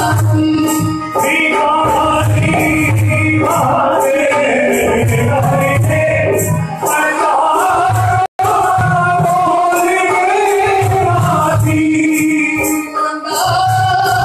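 Live Hindu devotional bhajan: harmonium playing sustained melody with a dholak beating out a steady rhythm, a rattling hand percussion keeping time, and men singing. The sound cuts out for a split second a little past the middle.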